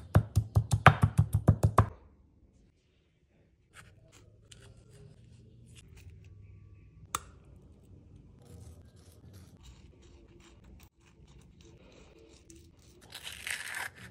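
Stone pestle pounding sliced green chilies and salt in a stone mortar: rapid strikes, about six a second, that stop about two seconds in. Faint handling follows, then a short scrape near the end as a spoon scoops cubed avocado from its skin.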